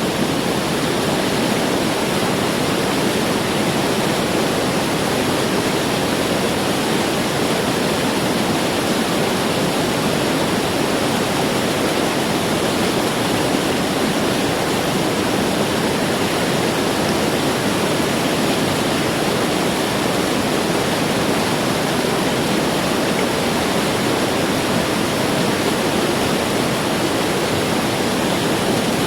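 Putna waterfall rushing: a loud, steady wash of falling water that holds unchanged throughout.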